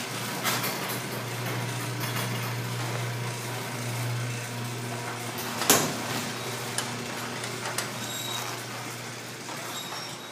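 Craftsman half-horsepower garage door opener running as the door travels: a steady motor hum with mechanical rattle, and a sharp knock about halfway through.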